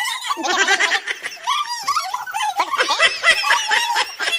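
High-pitched voices laughing and giggling, mixed with excited talk.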